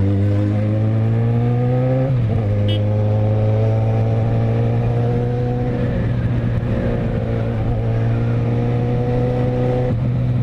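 Yamaha XJ6's inline-four engine pulling steadily, its pitch climbing slowly through each gear. There is a shift up, with a quick drop in pitch, about two seconds in and again near the end.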